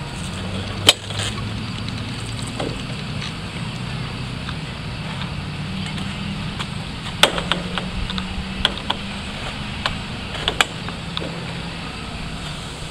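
An engine running steadily in the background as a low, slightly wavering hum, with scattered sharp clicks and ticks over it, the loudest about a second in and again around seven and ten seconds in.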